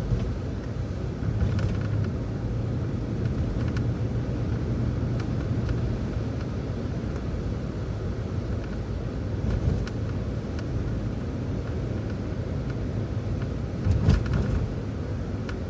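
City transit bus driving, its engine and road noise a steady low rumble heard from on board, with a brief louder thump near the end.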